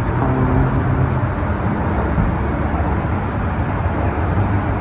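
Steady road traffic rumble from nearby cars, with a vehicle engine's low hum standing out for the first second or so.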